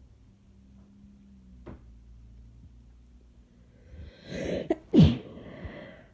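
A sick person's covered sneeze: a short gasping build-up about four seconds in, then one sharp sneeze a moment later that tails off.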